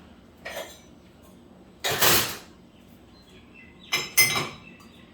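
Stainless steel utensils and small vessels clinking and clattering as they are set into a dishwasher rack: a light clink about half a second in, a louder clatter around two seconds, and a ringing metallic clink around four seconds.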